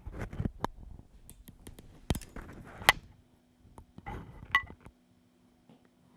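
Handling noise: a run of irregular clicks, taps and knocks as a microphone and phone are set in place, with two sharper knocks in the middle; it stops about five seconds in, leaving only a faint hum.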